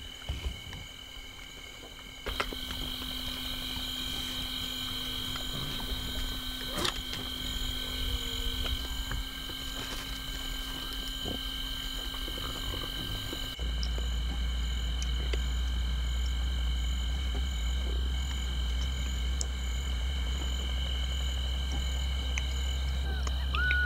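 Night-time chorus of calling animals, heard as several unbroken steady high tones, with a few sharp clicks. A low rumble comes in about halfway through.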